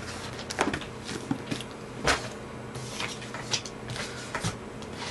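Scattered knocks, taps and rustles of objects handled and shifted on a desk, the loudest knock about two seconds in, over a faint steady hum.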